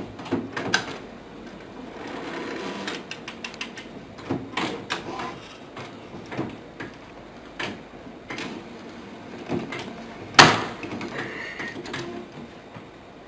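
Printer mechanism clicking and clattering irregularly, with a single sharp loud knock about ten seconds in.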